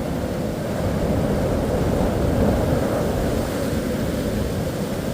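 Ocean surf: a steady rushing wash of waves that swells a little in the middle.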